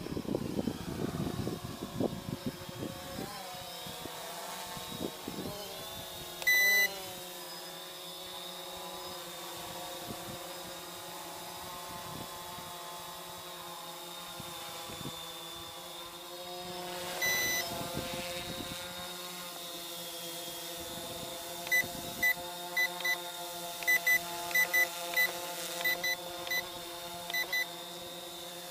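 Brushless quadcopter motors and propellers whining steadily, the pitch wavering slightly, with wind buffeting the microphone in the first few seconds. Short electronic beeps sound once about a quarter of the way in and again past halfway, then many come in quick, uneven succession near the end.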